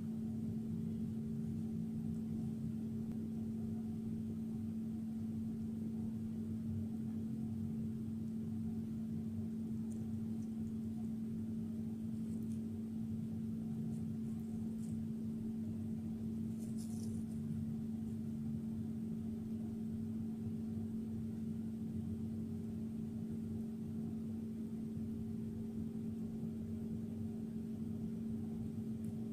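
Steady low electrical or mechanical hum holding two even tones. A few faint high ticks come through around the middle.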